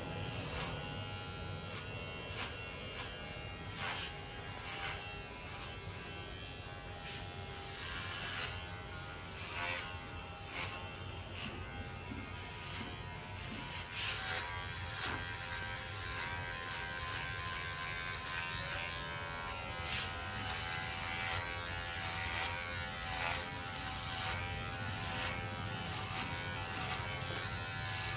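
Cordless electric hair clipper buzzing steadily as it cuts short hair up the back of the head in a fade.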